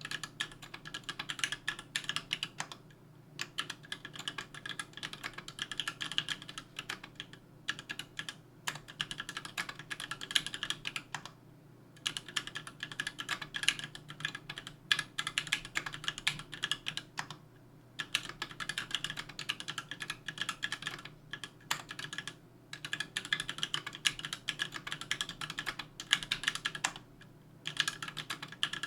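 Continuous typing on a 60% aluminum-case custom mechanical keyboard (KBDfans Tofu) with an aluminum plate, JWK H1 78 g linear switches and GMK keycaps: fast runs of sharp key clacks, with brief pauses every few seconds.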